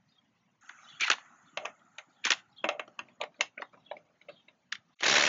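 Scattered sharp clicks and clacks as the impact socket and adapter are handled and fitted onto a wheel lug nut, then about five seconds in a Ryobi brushless compact impact driver starts hammering loudly on the lug nut, torqued to about 80 ft-lb, to break it loose.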